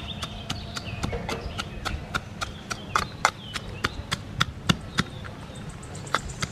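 A metal pestle pounding dried red chillies, green chillies and sugar and salt crystals in a steel tumbler: a steady run of sharp metallic knocks, about four a second.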